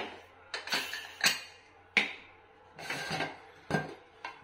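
Pressure cooker lid being worked open and lifted off the pot: a series of sharp metal clinks and knocks, about eight, spread over a few seconds.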